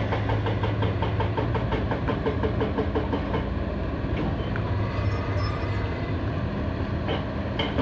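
Heavy diesel engine of earthmoving machinery running steadily, with a fast even pulse of about four beats a second that smooths out about halfway through. A few sharp clicks come near the end.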